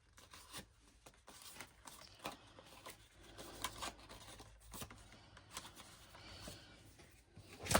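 Faint, irregular rustling, light taps and clicks of paper and card being handled and pressed down, with a sharper click near the end.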